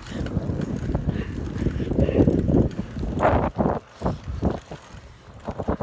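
Wind buffeting the phone's microphone during a bicycle ride, a heavy low rumble for the first few seconds. From about halfway on come a series of short knocks and rattles from the bike and the phone being jostled.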